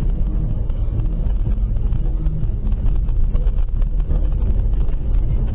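Steady low rumble of vehicles on a street, heavy in the bass, with no clear brake squeal or crash standing out.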